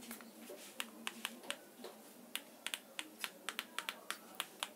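A quick, uneven run of sharp clicks, about four a second.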